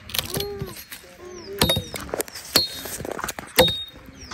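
Machete chopping into a dry log: sharp, separate strikes about once a second. Short pitched calls and high chirps sound in the background.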